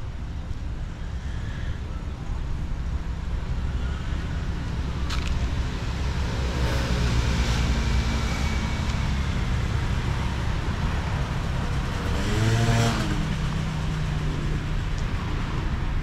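Road traffic: cars driving by on a street over a steady low rumble, with one vehicle passing loudest about three-quarters of the way through.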